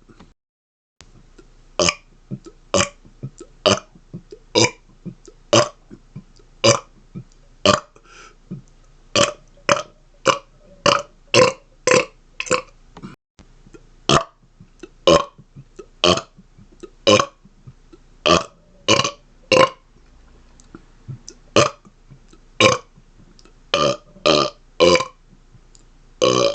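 A man's rapid-fire burping: a long string of short, separate burps, about one to two a second, with a brief pause just after the start.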